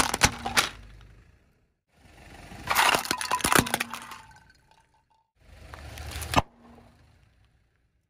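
Car tyre rolling over brittle objects and crushing them: clusters of sharp cracks and snaps, one right at the start and a longer burst about three seconds in, each after a swell of rolling noise. A third rolling pass cuts off abruptly after about six seconds.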